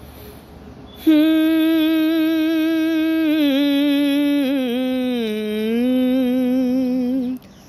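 A man humming one long held note with a slight waver, starting about a second in, dipping lower midway, then stopping abruptly just before the end. It is the unaccompanied lead-in to his singing of a Hindi film song.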